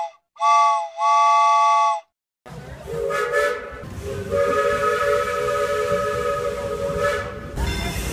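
Steam locomotive chime whistle blowing a short toot and then a blast of about a second. After a brief gap, a noisier recording follows with steam hissing and a lower-pitched whistle held for about three seconds.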